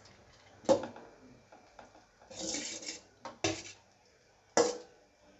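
Cooked rice being tipped from a stainless steel plate into a frying pan: the plate knocks against the pan with three sharp metallic clanks, the last the loudest, and a short scraping rustle of rice sliding off the plate in between.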